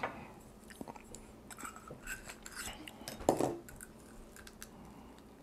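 Faint clicks and scrapes of a steamed oyster's shell being handled and pried open by hand, with one louder knock about three seconds in.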